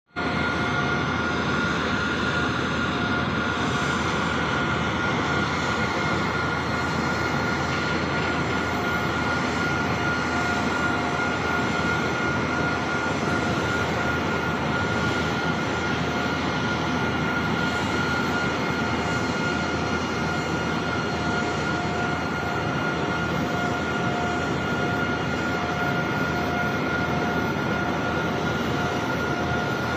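Boeing 737-800's CFM56 turbofan engines running steadily: an even rush of jet noise with a constant high whine that neither rises nor falls.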